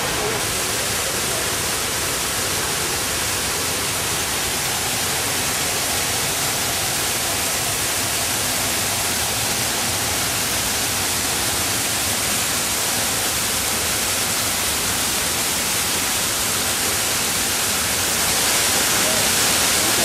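A small waterfall's falling water, a steady rushing hiss, growing a little louder near the end as the water comes close.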